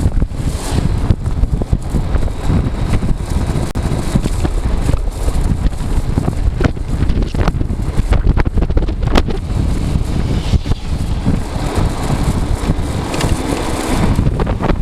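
Wind buffeting the microphone at riding speed on an electric scooter, over steady road and tyre noise. A few sharp knocks come through about halfway in.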